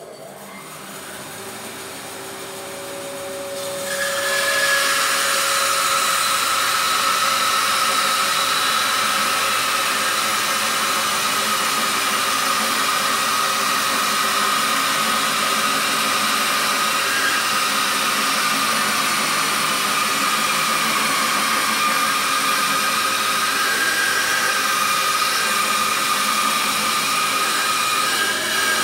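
Laguna bandsaw resawing a tall board on edge: the blade cuts steadily through the wood with a whining noise. It runs quieter for the first few seconds, and the sound jumps up about four seconds in as the cut gets going.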